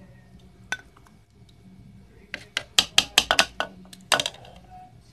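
Plastic ladle knocking and clinking against a ceramic slow-cooker crock and soup bowl while ladling soup: one tap about a second in, then a quick run of about a dozen clinks and knocks in the middle, the last one ringing briefly.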